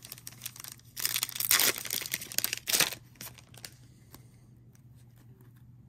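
Plastic wrapper of a Panini Mosaic trading card pack being torn open and crinkled, loudest between about one and three seconds in, then faint ticks of cards being handled.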